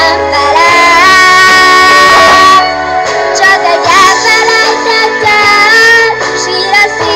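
A girl singing into a microphone, amplified through a PA, over backing music; about a second in she holds one long steady note.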